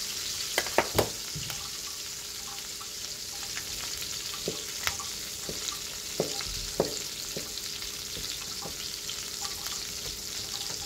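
Chicken breast frying in melted butter in a pan: a steady sizzle with sharp spattering pops, the loudest few about a second in and several more around the middle.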